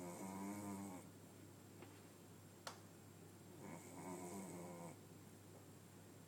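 A Cavalier King Charles Spaniel snoring faintly in its sleep: two snores about four seconds apart, each lasting about a second, with a short sharp click between them.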